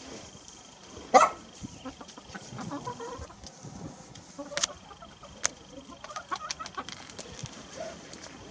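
Rooster clucking, with one short loud call about a second in, and a run of sharp clicks later on as it pecks at cookie crumbs.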